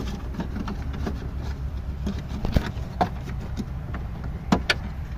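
Scattered sharp clicks and knocks of hands working plastic parts behind a Fiat Panda II headlight while handling the front position-lamp bulb holder, over a steady low rumble.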